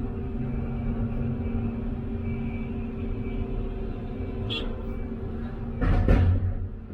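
Hyundai HX330A excavator's diesel engine running steadily under load, heard from inside the cab, with a loud crunch of the bucket breaking into rock about six seconds in.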